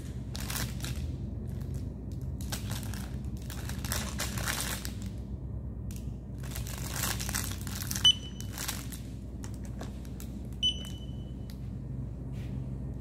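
Handheld barcode scanner giving two short, high beeps about two and a half seconds apart, amid the crinkling of packaging being handled, over a steady low hum.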